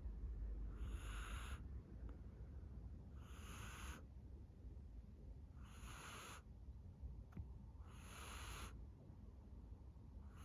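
Norwegian Forest Cat snoring in its sleep: short, soft, hissy snores, one about every two and a half seconds, four in a row with a fifth starting at the end.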